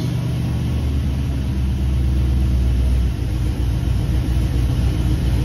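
1986 Chevrolet C10 pickup's engine idling steadily on a test run.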